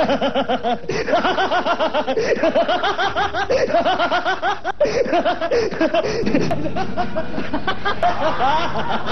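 Laughter: a voice laughing in quick repeated ha-ha bursts, joined about six seconds in by several voices laughing together.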